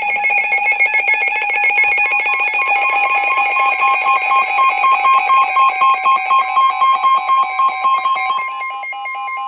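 NOAA Weather Radio alert alarm: a loud electronic alarm of rapidly pulsing fixed tones over a steady high tone. The pulsing stops near the end, leaving the plain steady tone. It announces a severe thunderstorm warning broadcast.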